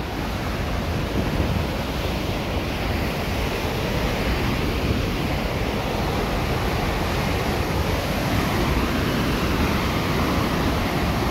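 Steady rush of whitewater pouring over Star Falls and churning in the plunge pool, with wind rumbling on the microphone.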